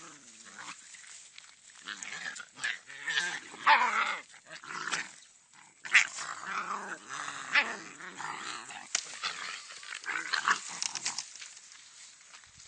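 A dog growling and whining in irregular bursts, with a few sharp snaps.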